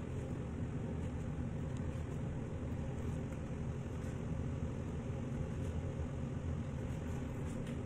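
Steady low rumble of background machinery, even in level throughout, with no distinct knife strokes standing out.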